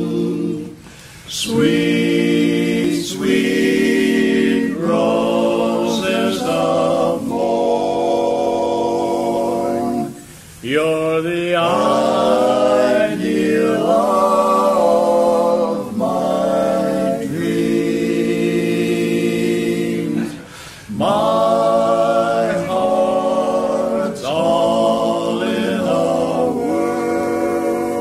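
Male barbershop quartet singing a cappella in close four-part harmony: held chords in phrases, with short breaks between them.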